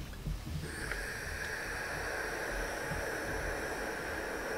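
Philips steam iron hissing steadily as it presses a seam on cotton fabric, the steam coming on about a second in.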